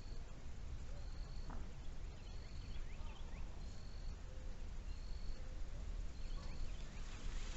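Outdoor wildlife calls: a short, high, steady note repeats about once every second and a quarter, with scattered quick rising chirps between, over a steady low rumble.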